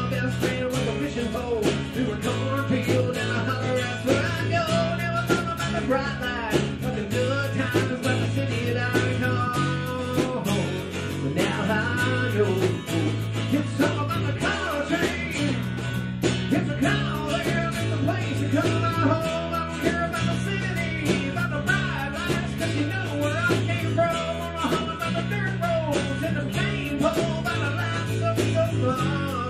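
Background music: an upbeat rock song led by guitar, with a repeating bass line and a steady drum beat.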